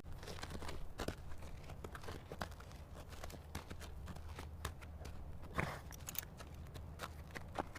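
Zebra moving about: scattered soft clicks and rustles, irregular and close together, over a low steady rumble.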